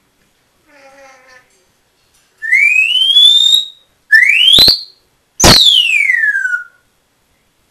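Congo African grey parrot whistling: a rising whistle, a second sharper rising one, then a long falling whistle. A faint, brief mutter comes about a second in.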